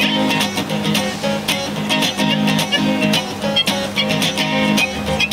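Background music led by a strummed acoustic guitar, with a steady rhythm of strums over sustained chords.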